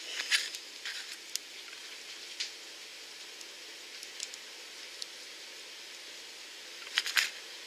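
Small plastic-and-metal lightsaber keychain toy being handled in the fingers: scattered faint clicks and taps over a steady hiss, with a short cluster of clicks near the end.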